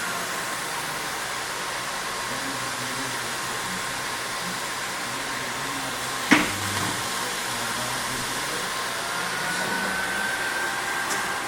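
Automatic cellophane-wrapping machine running with a steady whirring hiss and a faint high whine. A single sharp clack comes about six seconds in.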